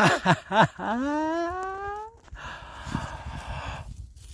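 A smooth rising tone lasting about a second, then about a second and a half of rough scraping noise, typical of soil being dug out over a metal detector target.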